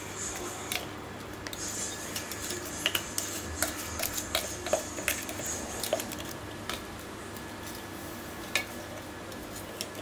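A spoon clinking and scraping against a dish: scattered light taps and clicks, busiest in the middle, while the freshly ground biscuit powder is handled. A faint steady hum runs underneath.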